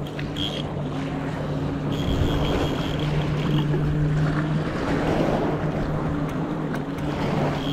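Wind buffeting the microphone and small waves lapping in the shallows, over a steady low drone from a distant motor.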